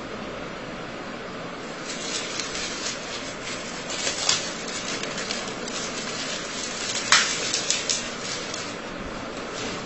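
Paper being handled against an easel board: rustling and scraping under the hand, with a sharp click about four seconds in and a louder one about seven seconds in, over a steady background hiss.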